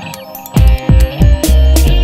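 Electronic background music with a dubstep feel: after a brief quieter break, heavy bass hits with falling pitch drops and sharp percussion come in about half a second in.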